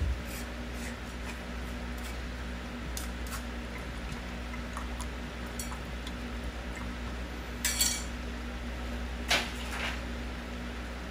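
Pan of bopis (diced pork offal and vegetables) simmering on a gas stove, with faint scattered crackles over a steady low hum. Two brief kitchenware clinks come about eight and nine and a half seconds in.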